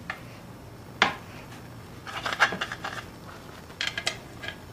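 Knife tapping and scraping against a chopping board as the crusts are cut off a slice of bread: a sharp tap about a second in, then a cluster of clicks and scrapes around the middle, and two more taps near the end.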